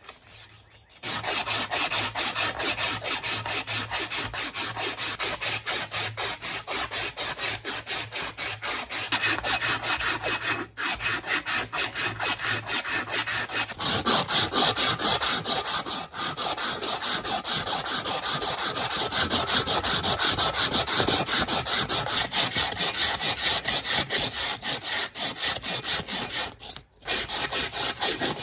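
Rapid, steady back-and-forth scraping strokes of a hand abrading tool working the old hammer, several strokes a second, starting about a second in, with two brief breaks, one near the middle and one near the end.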